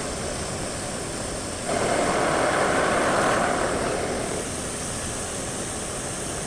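CNC machining center running, with a steady mechanical noise; a louder, rushing noise comes in sharply under two seconds in and fades out about two seconds later.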